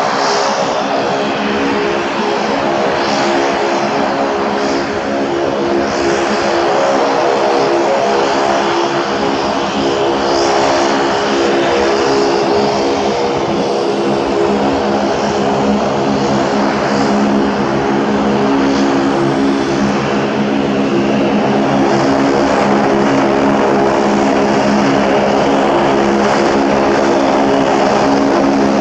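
Saab 340F's twin General Electric CT7 turboprop engines running at taxi power: a steady propeller drone made of several even low tones with a hiss above. It grows slightly louder over the second half as the aircraft comes closer.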